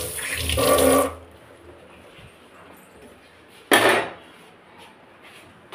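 Metal kitchen utensils clattering at a stainless-steel sink: a scraping, ringing clatter in the first second, then one sharp clank about four seconds in.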